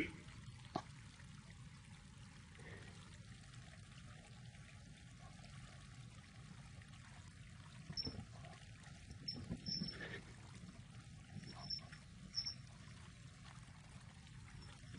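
Quiet low background hum with a few soft rustles in the second half, as a kitten burrows about in a duvet.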